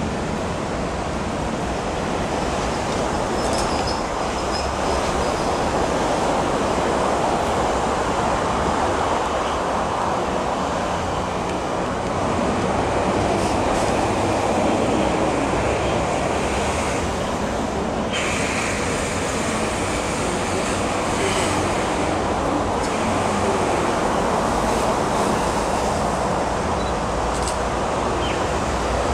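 SS8 electric locomotive and its passenger coaches running over curved track: a steady rumble of wheels on rail, with brief faint squeals from the wheels a few seconds in and again past the middle.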